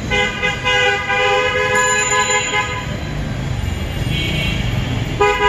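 Vehicle horns honking in street traffic: a long steady blare of about three seconds, then shorter honks near the end, over the low rumble of passing traffic.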